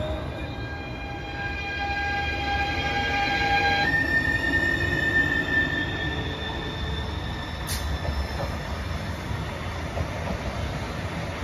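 ETR 524 (Stadler FLIRT) electric multiple unit rolling in alongside the platform, with a steady high whine of several tones over a low rumble of wheels on track. The whine steps up to a higher pitch about four seconds in. A single sharp click comes near eight seconds.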